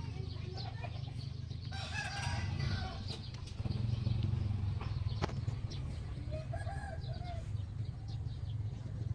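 Chickens calling in the background: two drawn-out pitched calls, one about two seconds in and one about six seconds in, over a steady low rumble.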